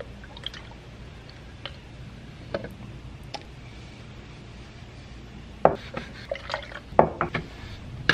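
Dark walnut wood stain pouring from its can into a plastic paint-sprayer cup, with a faint trickle and a few light ticks. Near the end comes a run of sharp plastic clicks and knocks as the sprayer's lid and pickup tube are set on the cup and screwed down.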